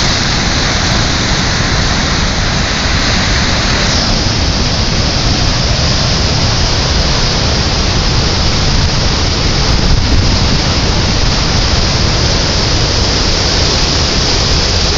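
Flash-flood torrent rushing loudly and steadily over rough ground, a continuous roar of fast white water sweeping along rocks, mud and brush.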